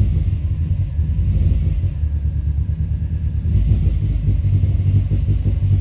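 2005 Subaru Forester XT's turbocharged 2.5-litre flat-four running rough and uneven, a sign of the rich-running rough idle the owner is chasing.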